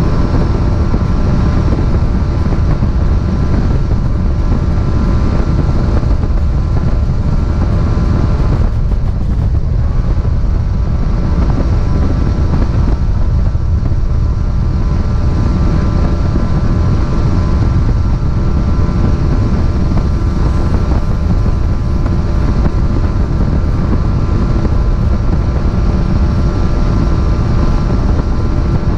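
Bass boat underway at speed: a steady engine drone mixed with wind rushing over the microphone and water noise from the hull.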